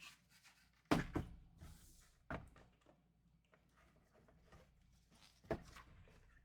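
A few quiet thunks of a cardboard trading-card box and packs being handled and set down on a table, the first about a second in and another about five and a half seconds in.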